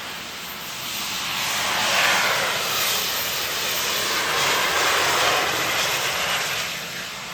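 Gravity jet suit's small gas-turbine jet engines making a steady rushing jet noise that builds about a second in, is loudest through the middle, and eases off near the end.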